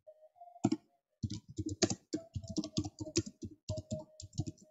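Computer keyboard keys clicking in a quick, irregular run of typing, with a short pause near the start.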